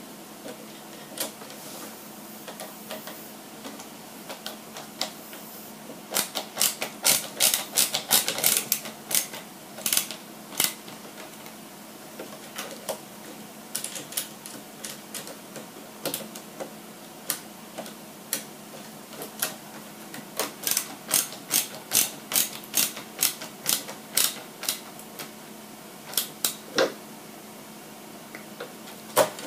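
Small plastic and metal parts and hand tools of an RC truck kit being handled and fitted on a workbench: irregular sharp clicks and taps, coming in clusters, over a faint steady hum.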